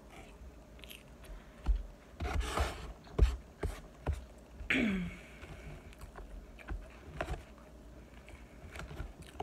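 Metal fork and spoon scraping and clicking against a takeout food container as food is scooped up, with chewing between the clicks. A short falling-pitch vocal sound comes about five seconds in.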